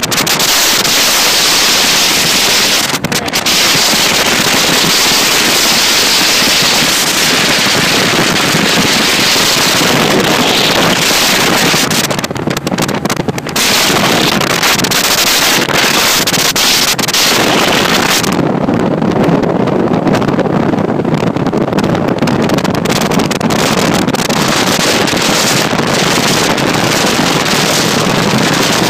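Loud, steady wind buffeting on the microphone of a bass boat running at speed, over its Mercury outboard motor. The high hiss eases for a few seconds past the middle.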